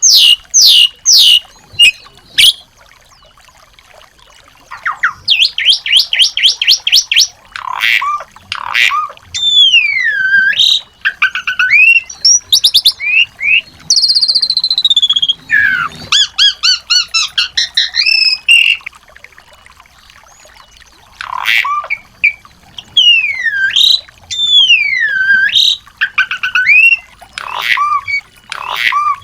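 Small songbirds singing: phrases of fast repeated chirps, swooping whistles that glide down and up, and rapid trills, broken by a few short pauses.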